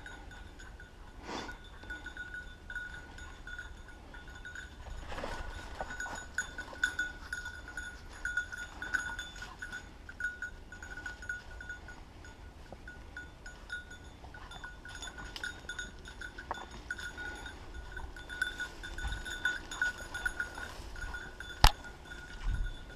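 A small bell on a hunting dog's collar jingling continuously and unevenly as the dog moves, over the rustle of brush. One sharp knock comes near the end.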